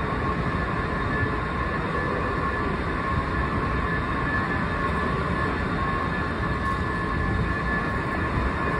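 Steady rumble and hum of Washington Metro station machinery, with two steady high whining tones over it and no change in level.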